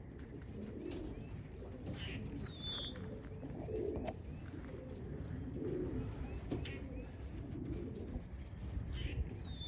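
Racing pigeons cooing softly and repeatedly at the loft, with short high falling chirps from small birds about two seconds in and again near the end.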